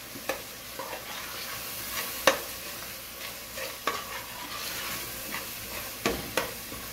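A metal ladle stirring onion-tomato masala frying in oil in a stainless steel pot: a steady sizzle with scattered knocks and scrapes of the ladle against the pot, the sharpest about two seconds in.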